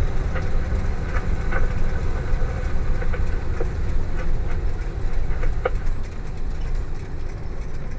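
Fire engine heard from inside its cab while driving: a steady low engine and road rumble, with frequent small rattles and clicks.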